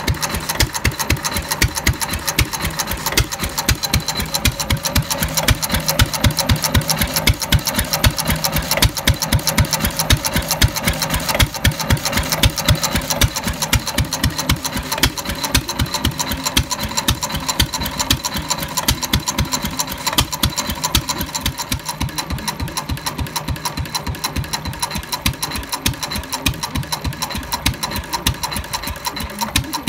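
Fairbanks-Morse Z 1½ hp hit-and-miss stationary engine running on its first run after restoration, a fast, even clatter of strokes and valve gear.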